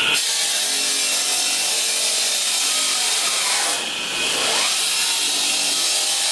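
Bench-mounted circular stone saw cutting through slate: a steady, loud, hissing grind that eases briefly about four seconds in.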